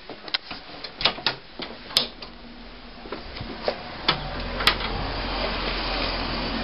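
Scattered clicks and knocks of footsteps and a front door as a person walks out of a house, then a steady low rumble of outdoor air on the microphone from about four seconds in.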